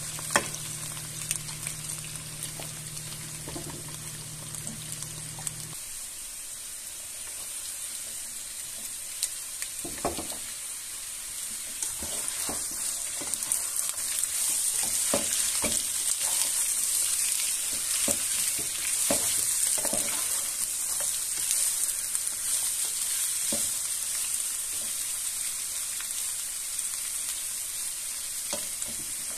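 Sliced potatoes and red onion sizzling in hot oil in a skillet, with a plastic spatula stirring and turning them, scraping and tapping the pan now and then. The sizzle grows louder partway through.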